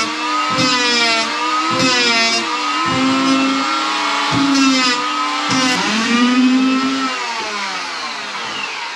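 Dremel rotary tool running at high speed with a small attachment pressed onto copper boat nails and roves to clean them up; its whine sags in pitch several times under load and falls away near the end.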